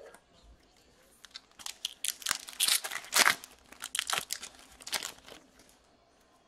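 Hockey card pack wrapper being torn open and crinkled, a run of sharp crackles over about four seconds, loudest around the middle.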